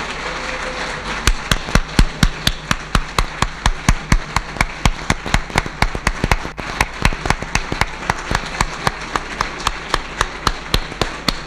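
A large audience applauding. About a second in the scattered clapping turns into loud rhythmic clapping in unison, several claps a second, held steady.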